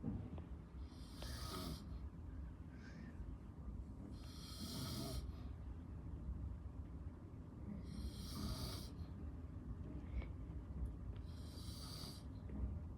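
A man snoring in his sleep: four slow, noisy breaths, about one every three and a half seconds.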